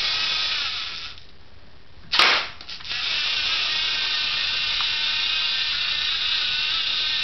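LEGO Mindstorms motor whirring through its plastic gear train, stopping about a second in; a little over a second later comes a single sharp snap from the pistol mechanism, followed by a couple of small clicks, and the motor starts whirring again.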